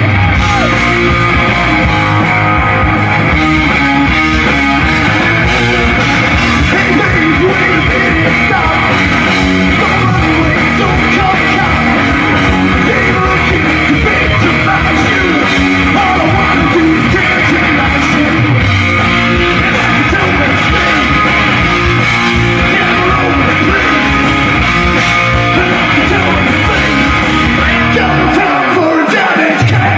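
Hard rock band playing live at full volume: electric guitars, bass and drums, with a man singing into a microphone.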